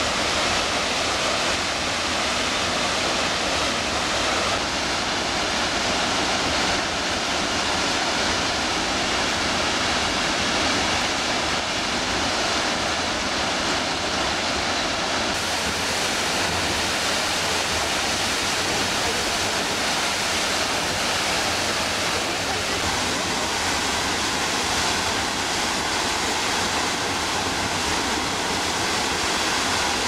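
The Krimml Waterfalls, a high alpine waterfall, give off a loud, steady rush of falling water and spray.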